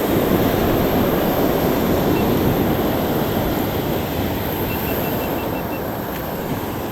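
Ocean surf washing up the beach, with wind buffeting the microphone: a steady rushing noise that is loudest in the first second or so and eases off slowly.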